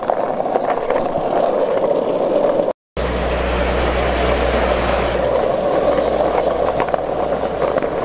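Skateboard wheels rolling over street pavement, a steady grinding rush. It drops out for a moment about three seconds in, and after that a low engine hum of nearby traffic runs underneath until near the end.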